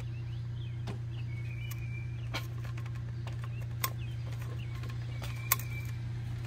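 A few sharp clicks and knocks of hands and shoes on a telescoping aluminium ladder as a man starts to climb it, the loudest two near the end, over a steady low hum. Small birds chirp faintly.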